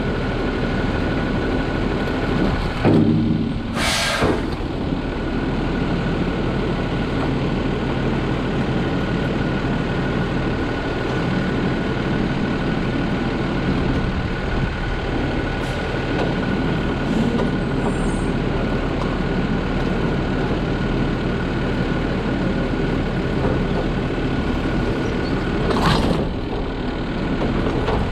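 Automated side-loading garbage truck's diesel engine running steadily at the curb, with a steady high whine over it. Two short sharp hisses of air come through, about four seconds in and again near the end.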